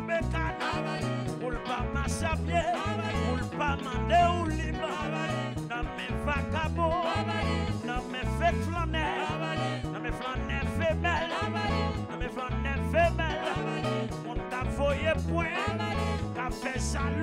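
Acoustic band music with a lead singer over a steady rhythm and a moving bass line, in a swing or jazz feel.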